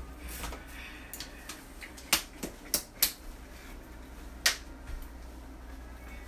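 Sharp clicks and knocks from kitchen items being handled, with four loud ones between about two and four and a half seconds in, over a low steady hum.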